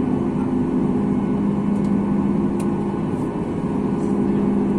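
Steady cabin drone inside a Boeing 737 MAX 8 on the ground before takeoff: an even rushing noise with a low, unchanging hum.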